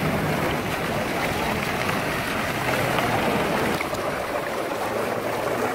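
Thermal pool water cascade pouring steadily down and splashing into the pool water.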